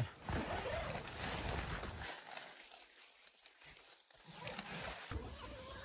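Tent door being zipped shut, with the nylon tent fabric rustling. The noise comes in two spells with a quieter gap in the middle.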